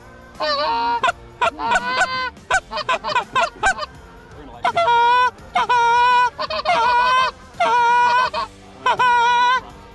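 Canada goose honking: a string of quick, short clucks and honks, then five long, loud honks in a row.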